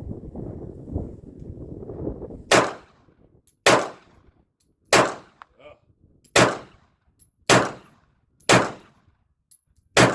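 A pistol fired seven times at a slow, steady pace, roughly one shot a second, beginning about two and a half seconds in after a low rumbling noise.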